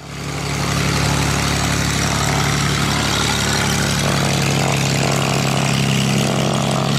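Light aircraft's Corvair six-cylinder engine and propeller running steadily at low power as the plane taxis past.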